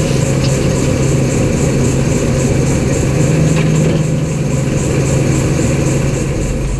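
Heavy engine running steadily at a constant speed, with a faint, even, repeating high ticking over it.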